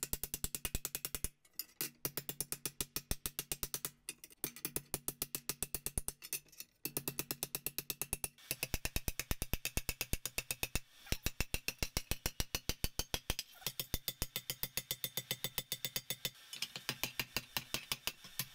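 Hammer blows on steel at the anvil, in fast even runs of several strikes a second, with the metal ringing under them. The runs stop briefly every few seconds as the shovel blank is forged toward its rough shape.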